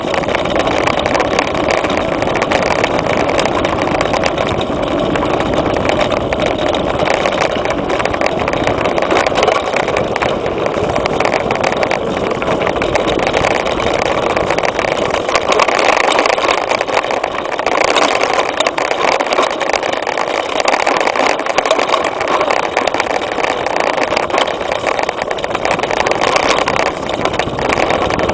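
Wind rushing over a handlebar-mounted camera's microphone, mixed with the steady rattle and clatter of a mountain bike's frame, suspension fork and tyres bouncing over a dirt trail at speed.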